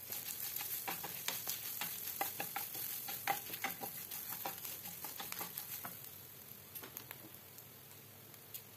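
Dried red chillies, grated coconut, curry leaves and lentils sizzling as they roast in a nonstick pan, with a wooden spatula stirring and scraping through them in quick strokes. The stirring stops about six seconds in and the sizzle carries on more quietly.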